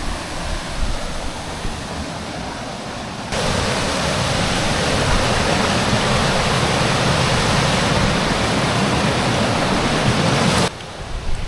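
Rushing water of a jungle stream and waterfall, a steady hiss that jumps much louder about three seconds in and drops back suddenly near the end.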